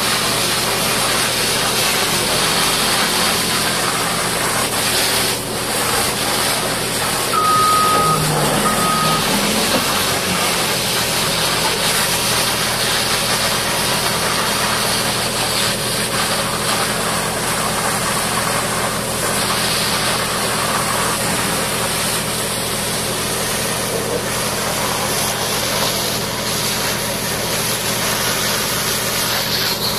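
Heavy diesel engine running steadily under a constant hiss of high-pressure water spray. About eight seconds in come two short beeps and a brief rise in engine pitch.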